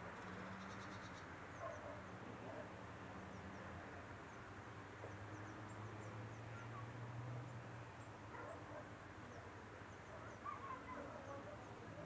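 Faint outdoor evening ambience: a steady low hum with scattered faint high chirps and occasional distant animal calls.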